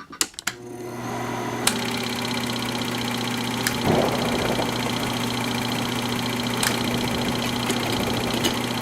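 A steady machine-like hum that fades in over the first second, with a few sharp clicks over it and a brief swell about four seconds in.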